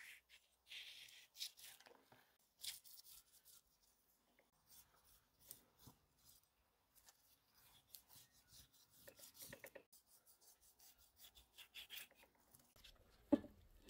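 Faint chef's knife strokes slicing and scraping through the thick fat cap of raw beef short ribs on a wooden cutting board, a run of short rasping strokes. A single sharp knock near the end.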